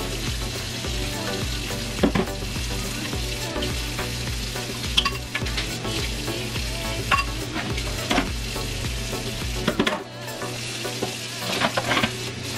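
Kitchen faucet running into a stainless-steel sink while dishes are scrubbed and rinsed, with several sharp clinks and knocks of dishes against the sink.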